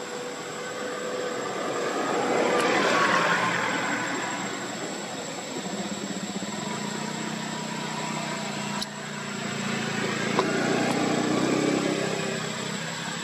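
Background vehicle noise: a rushing sound swells and fades about three seconds in, then a low steady engine drone sets in, with a second swell near the end.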